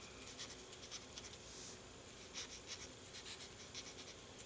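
Faint, quick strokes of a Stampin' Blends alcohol marker's felt tip scratching across cardstock as it colors in a stamped image.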